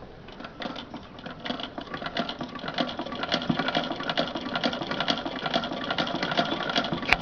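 Singer 15K88 hand-crank sewing machine stitching: a fast, even mechanical clatter of needle and feed that grows louder over the first few seconds as the crank gets up to speed, with one sharp click near the end.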